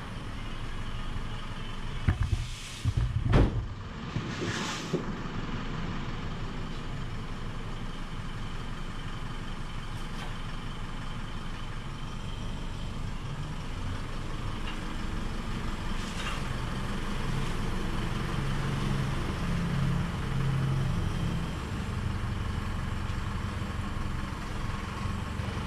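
Engine of a small flatbed truck running as it manoeuvres up close, a low rumble that grows louder past the middle. A few brief sharp sounds come within the first five seconds.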